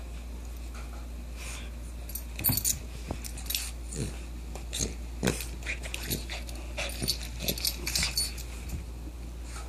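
A small dog playing roughly with a plush toy, mouthing and wrestling it, making short, irregular noises that start about two seconds in.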